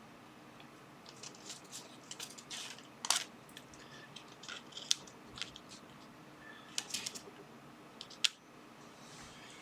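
Small items and their packaging being handled on a bench: scattered sharp clicks and short rustles, the crispest clicks about three, five, seven and eight seconds in.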